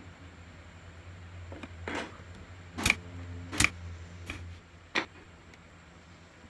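Porter-Cable nailer firing into pallet-wood slats: three sharp shots in the middle, with a softer knock just before them.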